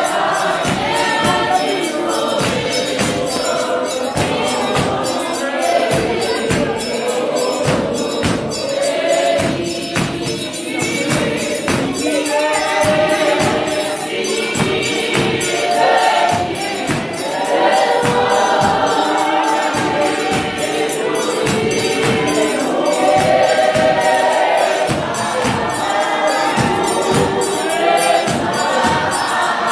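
Church congregation singing a hymn together, many voices in harmony, over a steady percussive beat.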